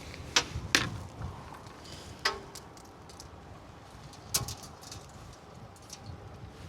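A few sharp knocks and clicks of objects being handled, one with a brief ringing tone, over a low wind rumble on the microphone.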